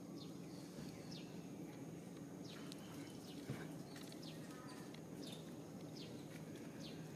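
Birds chirping: short, high calls that fall in pitch, repeated irregularly about every half second, over a steady low hum. There is a single soft knock about halfway through.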